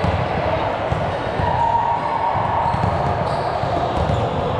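Ball game on an indoor court: ball hits and players' footfalls, with a brief squeal about a second and a half in.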